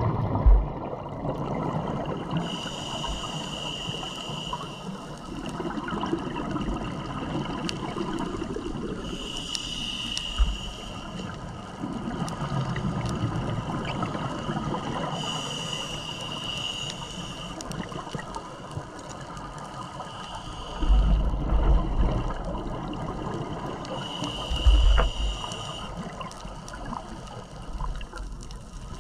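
Scuba regulator breathing underwater: a hissing inhale through the demand valve four times, about every six to seven seconds, with bubbly, gurgling rushes of exhaled air between. A few heavier low rumbles of bubbles come in the last third.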